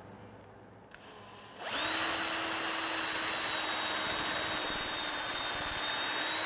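Cordless drill boring a 1/8-inch pin hole down into ash. It starts about a second and a half in, runs at a steady pitch for about five seconds, and cuts off sharply at the end.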